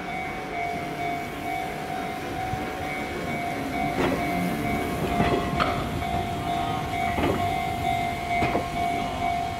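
Japanese level crossing alarm ringing steadily while an electric train rolls slowly past, its wheels clacking over the rail joints a few times in the second half.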